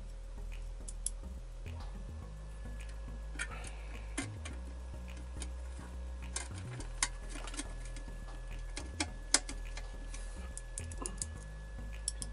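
Scattered light clicks and taps from handling the parts of a rice cooker, irregular and a few seconds apart, over a steady low hum.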